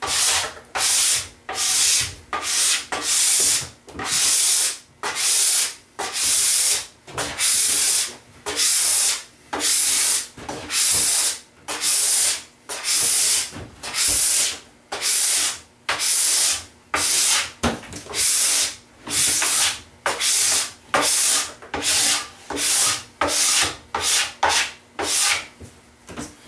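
Wax being worked off a snowboard base by hand with a scraper or brush: quick, even strokes, about one and a half a second, each a dry hissing rub. The strokes die away near the end.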